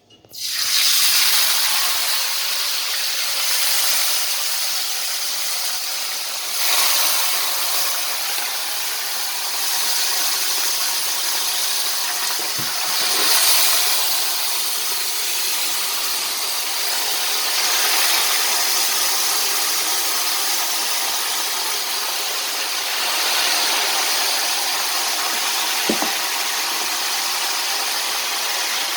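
Uncoated turkey wings deep-frying in hot oil: a loud, steady sizzle that starts suddenly, with a couple of light knocks partway through.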